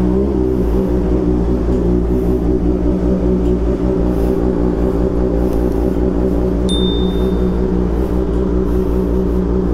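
Kawasaki ZX25R's 250 cc inline-four idling steadily through a newly fitted Arrow Pro Race exhaust, settling to an even idle in the first half-second.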